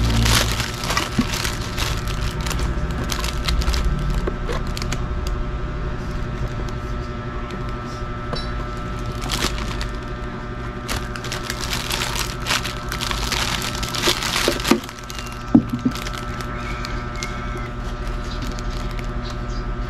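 Plastic wrapping film crinkling and crackling in irregular bursts as clear plastic storage containers are unwrapped and handled, with light plastic knocks; the crinkling is busiest about halfway through and eases off later. A steady hum runs underneath.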